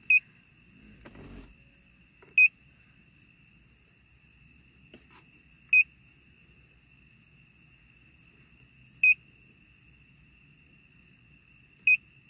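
Handheld automotive diagnostic scan tool beeping as its touchscreen buttons are pressed, while stored ABS trouble codes are being erased: five short high beeps, a few seconds apart.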